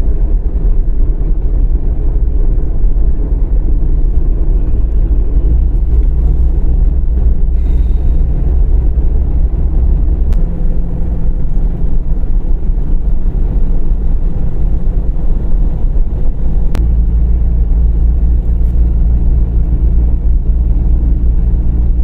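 A moving car heard from inside its cabin: a steady, loud low rumble of engine and tyres on the road. The rumble shifts slightly twice, about halfway through and again later.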